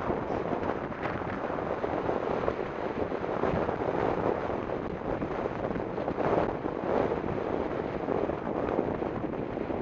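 Wind rushing over the bike-mounted camera's microphone as a mountain bike rolls fast downhill on asphalt, a steady, gusting roar.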